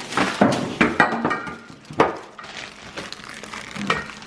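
Hard parts clinking and clattering together, with packaging crinkling, as flat-pack furniture pieces are unpacked. There are a dozen or so sharp knocks, a few of them ringing briefly like metal.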